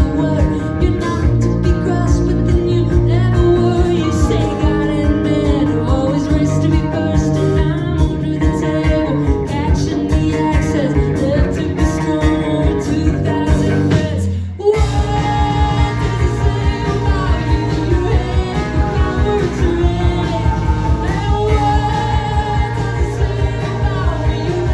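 Live band music: a woman singing lead over electric guitar and bass with a steady beat. The band breaks off for a moment a little past halfway, then comes back in.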